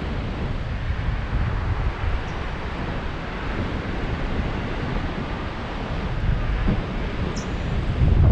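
Wind rushing over the microphone of a camera flown under a paraglider wing: a steady noise with a heavy low rumble of buffeting, growing gustier near the end.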